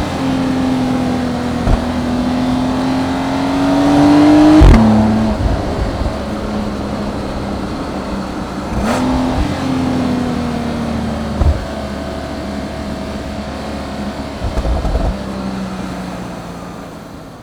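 Porsche 911 Turbo (992) twin-turbo flat-six pulling under acceleration, its pitch rising until a gear change drops it sharply with a click about a third of the way in. Near the middle the revs jump briefly higher, then the engine eases off and the sound falls slowly in pitch and level toward the end.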